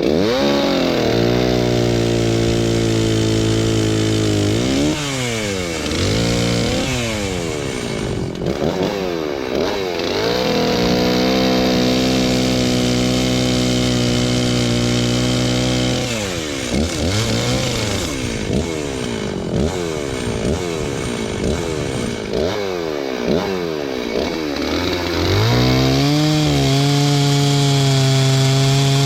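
Stihl 036 Pro two-stroke chainsaw cutting through wood. It runs at a steady high pitch for several seconds at a time, and in between its revs drop and rise again and again as the throttle is let off and squeezed.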